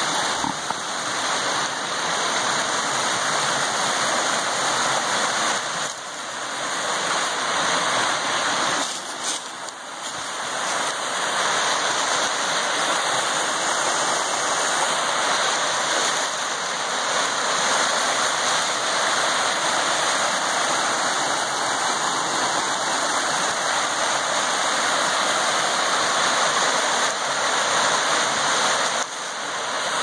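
Small woodland waterfall on a creek, the water pouring over rock ledges in a steady rush, dipping briefly about ten seconds in.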